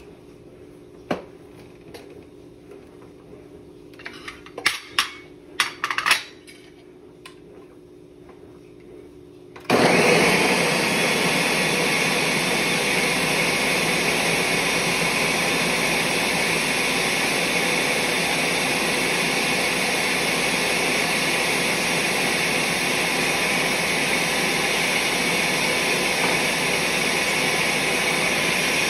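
A few light clicks and knocks, then about ten seconds in a countertop blender starts abruptly and runs steadily, puréeing chickpeas for hummus.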